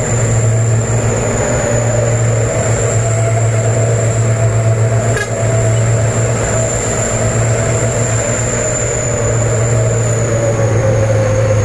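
Truck engine and drivetrain running steadily, heard from inside the cab, with a low hum under a whine that drops slightly in pitch near the end.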